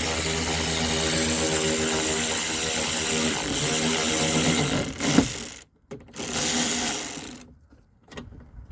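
Power window regulator motor in the stripped car door, whirring steadily as it lowers the glass for about five seconds, stopping, then running again briefly for just over a second.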